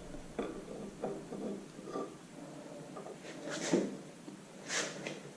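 Scattered light taps, clicks and scrapes of parts being handled while fitting together a tractor engine's rear main crankshaft seal, with a louder scrape a little before four seconds in and a short hiss near the end.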